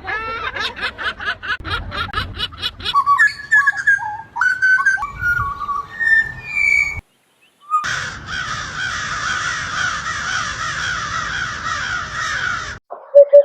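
Recordings of several different birds in turn. First comes a fast run of repeated calls, about four a second, then a few separate whistled notes. After a brief gap of silence, a flock chatters densely for about five seconds.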